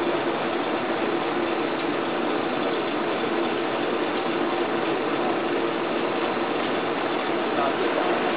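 Steady rushing noise with a low hum, unchanging throughout, from a charcoal-fired mini kiln during firing.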